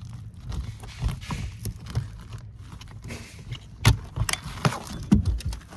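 Ductwork being handled and fitted in by hand, with scattered knocks and clatter and a few sharper knocks in the second half.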